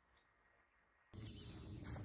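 Near silence with one faint bird chirp, then about a second in a steady outdoor background noise cuts in abruptly, a low rumble and hiss.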